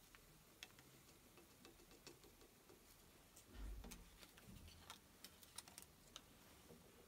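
Near silence with faint, scattered light ticks and clicks and one dull low thump about halfway through: small handling noises of paper antacid sachets and glassware on a tabletop.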